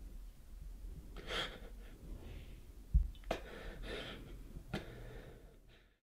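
A person breathing audibly, with two long breaths or gasps. A dull thump about three seconds in, and a couple of light clicks after it; the sound cuts off just before the end.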